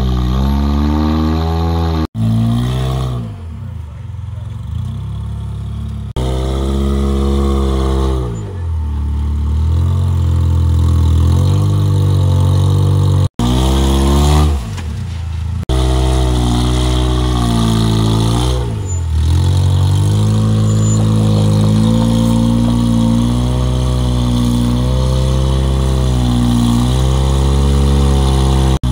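Rock crawler buggy's engine revving up and down in repeated swings of pitch as it climbs over rock ledges, with a few abrupt breaks in the sound.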